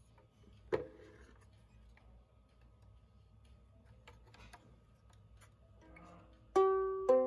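A wooden kit ukulele being handled: one sharp knock on it about a second in and light fumbling at the strings. Near the end its strings are plucked, two ringing notes about half a second apart.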